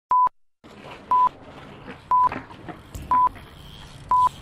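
A short electronic beep at one fixed pitch repeating once a second, five times, like a countdown, over faint steady background noise.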